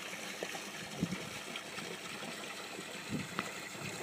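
Small creek flowing past a shelf of edge ice: a steady soft rush of running water, with a few brief low gurgles about a second in and again just after three seconds.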